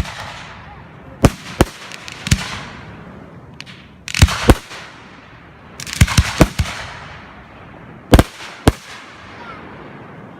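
Aerial fireworks bursting overhead: sharp bangs, often in quick pairs, every second or two, each group trailed by a crackling hiss.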